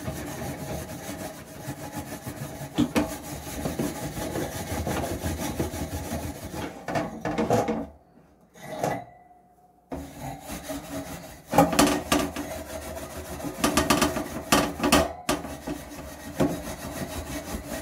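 Steel wool scrubbing a wire oven rack, a rapid rasping back-and-forth as baked-on grime is scoured off. The scrubbing stops for about two seconds midway, then starts again.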